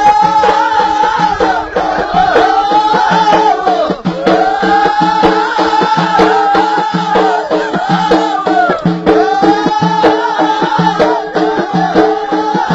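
Ahidous folk music: voices singing a repeated arching phrase over bendir frame drums beating a steady rhythm.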